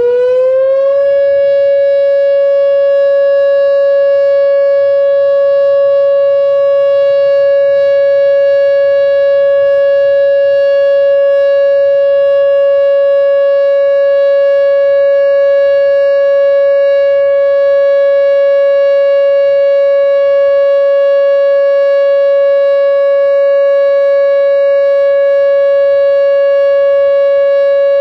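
Whelen WPS-2905 electronic outdoor warning siren sounding a test. It finishes a rising wind-up about a second in, then holds one steady, loud tone, the steady alert signal.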